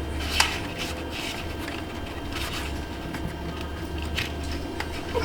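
Plastic wiring-harness connectors being tugged and worked loose by hand: a few sharp plastic clicks and scrapes, the loudest about half a second in, over a steady low hum.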